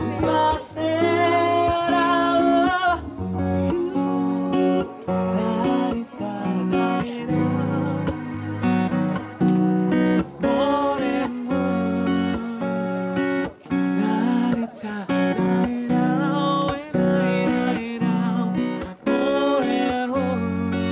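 Acoustic guitar strummed and plucked, playing an instrumental passage of a song with a steady rhythm of chord changes.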